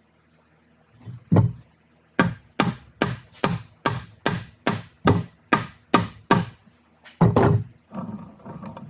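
Hammer blows during transfer case assembly: a single strike, then a run of about eleven quick, even blows at roughly two or three a second, then one heavier blow near the end.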